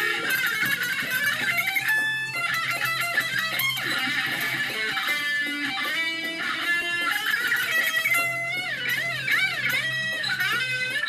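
Electric guitar played lead: quick runs of single notes and held notes, with wide bends and vibrato on sustained notes in the last few seconds.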